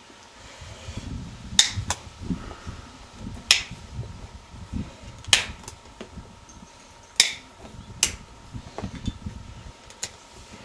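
Farrier's hoof nippers cutting through horse hoof wall, a sharp snap every second or two as excess wall is trimmed back where the sole meets the wall.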